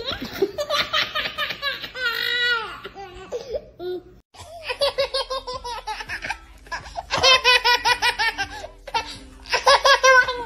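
A baby laughing hard in quick, repeated bursts of high-pitched giggles, in two stretches with a brief break about four seconds in.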